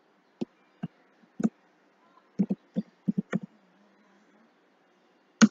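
Computer keyboard keys being typed: about ten separate keystrokes at an irregular pace, with a louder one near the end.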